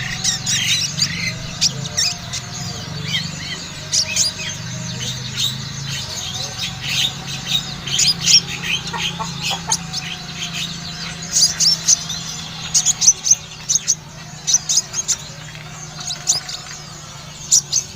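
Kolibri ninja (a small sunbird) singing a fast, chattering song of rapid high chirps and trills, denser in the second half. A steady low hum runs underneath.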